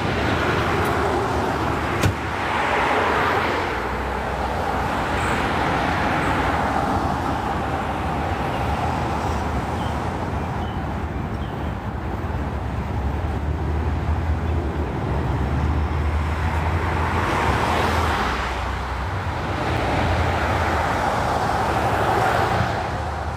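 Road traffic: steady traffic noise with a low hum, swelling several times as cars go by, and a single click about two seconds in.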